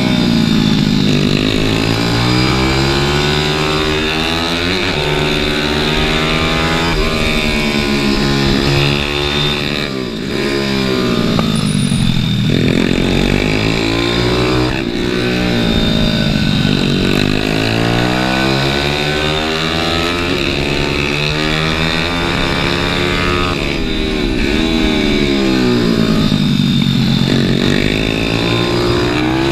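Onboard sound of a pit bike's small single-cylinder engine being ridden hard. The revs climb in steps through the gears and fall away for the corners, over and over.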